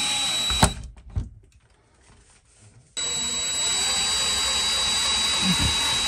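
Power drill driving screws into a metal shower wall plate. It runs steadily with a high whine and stops with a click about half a second in. After a moment of near quiet with a light knock, it starts again abruptly about three seconds in and runs steadily.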